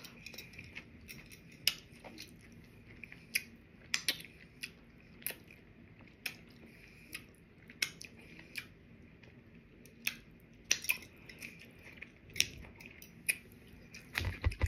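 Close-miked wet mouth sounds of eating: smacking and sucking clicks as food is chewed and licked off the fingers, coming irregularly about once or twice a second.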